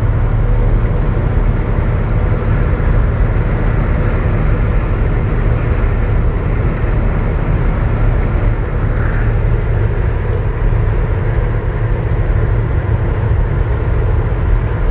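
1967 Chevy pickup truck on the move: a steady, continuous rumble of engine and road noise with no changes in pace.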